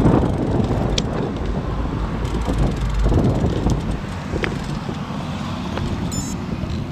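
Wind rumbling on the microphone with road traffic going by, easing a few seconds in as the bicycle slows to a stop.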